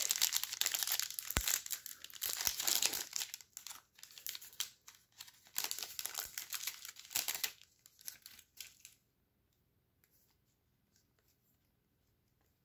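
A trading-card pack's foil wrapper being torn open and crinkled: a run of rips and rustles that dies away about seven or eight seconds in, followed by a few light clicks.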